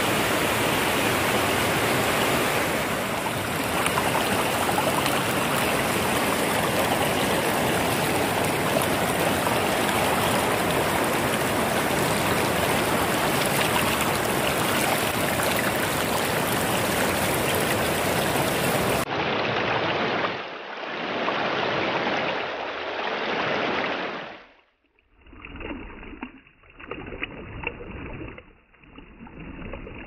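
Muddy stream in heavy flow rushing over rocks: a steady, dense rush of water. The sound changes abruptly about 19 and 24 seconds in, ending in an uneven stretch of water that swells and drops.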